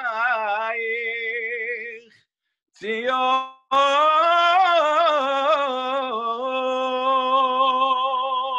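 A man singing solo and unaccompanied, with a wavering vibrato and long held notes. The voice breaks off twice in the first few seconds and ends on a long held note.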